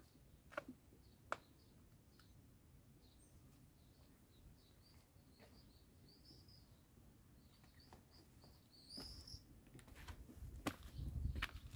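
Small birds chirping faintly in quick, short high notes, with two sharp clicks about half a second and a second in. From about nine seconds in, low scuffing and a few sharp knocks from footsteps on the dirt path come in under the birdsong.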